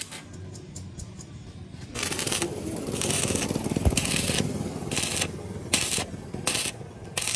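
Repeated scraping strokes on a hard surface, starting about two seconds in, about one a second at first and then quicker, with a single sharp knock near the middle.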